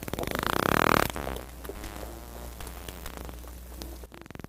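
Dolphin echolocation clicks: a fast, even train of clicks that grows denser and loudest about a second in, then carries on more softly.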